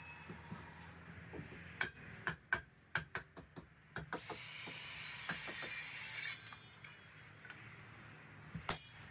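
A run of sharp knocks as a hand tool strikes a timber wall frame, then a hiss for about two seconds, and a few more quick knocks near the end.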